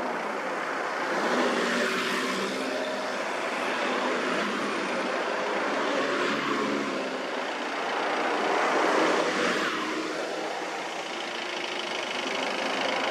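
Toyota HiAce minibuses driving slowly past one after another, engines running and tyres on the road, the sound swelling as each van passes.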